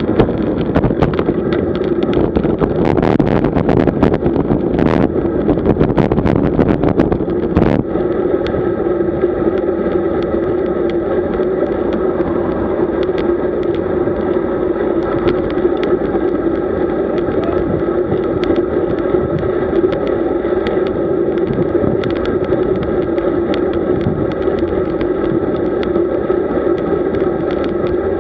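Road bicycle riding at speed: steady wind and tyre-on-road noise with a steady hum, and a run of sharp clattering knocks over the first eight seconds or so that then thin out to occasional ticks.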